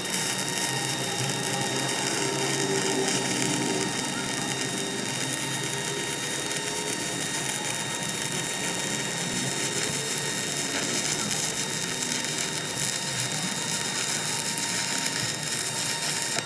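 A metalworking machine tool running steadily with a dense mechanical whirr and a few steady high tones.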